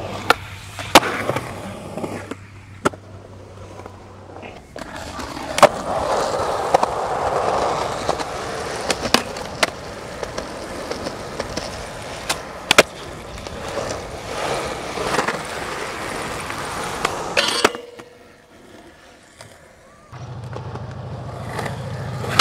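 Skateboard wheels rolling on concrete, broken by many sharp clacks of the board popping and landing across several runs. A steady low hum sits under the first few seconds and the last couple, with a quieter stretch shortly before the end.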